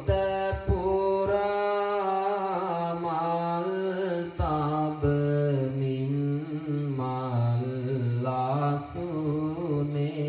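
A Buddhist monk chanting devotional verses in a slow, sung melody, holding long notes that bend and slide from one pitch to the next.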